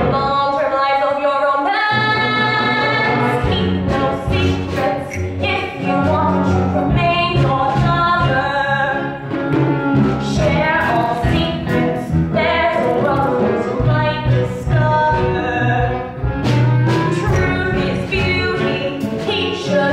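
Live stage-musical song: women singing with instrumental accompaniment, sustained sung notes over steady low bass notes.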